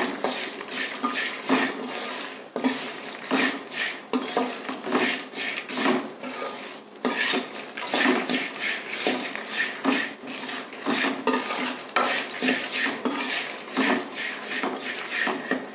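Steel ladle stirring and scraping a dry mix of peanuts, dried red chillies and spices around a metal kadai, in quick repeated strokes with the grains rattling: the stuffing masala being dry-roasted.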